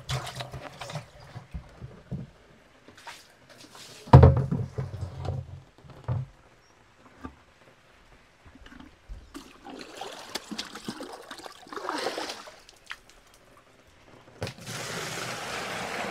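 A loud hollow thump about four seconds in, followed by knocks of plastic containers handled on a wooden deck. Near the end comes a steady rush of water poured from a plastic bucket.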